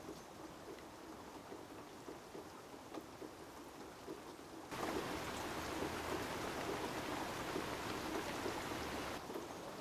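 A steady patter of water, like rain. About five seconds in it switches abruptly to a louder, fuller rush, which drops back just as suddenly shortly before the end.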